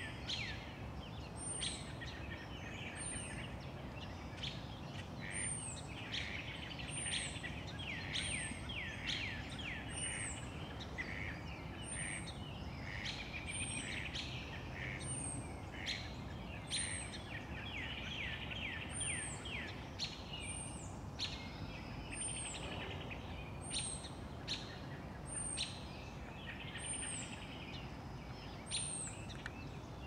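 Small birds singing: clusters of quick, downward-slurred notes, with a thin high note repeated about once a second throughout, over a steady low background rumble.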